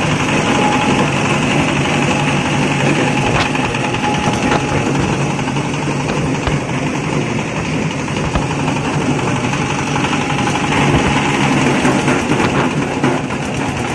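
Small single-cylinder diesel engine running steadily, driving a fabric and foam shredding machine.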